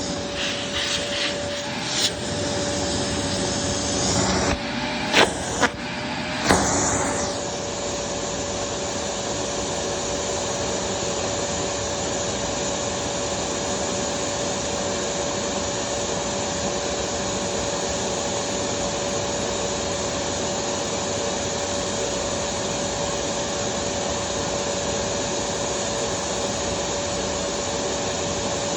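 Vacuum cleaner running with a steady hum, and a few sharp knocks in the first several seconds as it bumps against things.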